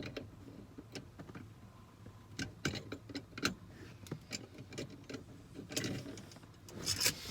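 Irregular sharp metallic clicks and taps of a hand tool working on a small nut or bolt, a few strongest clusters about two and a half seconds in, around three and a half seconds, and near the end.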